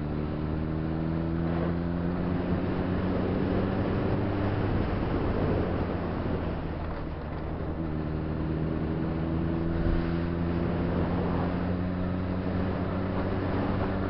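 Motorcycle engine under way, its pitch rising slowly as the bike accelerates, dropping away for a few seconds around the middle, then climbing slowly again. Wind rushes over the microphone throughout.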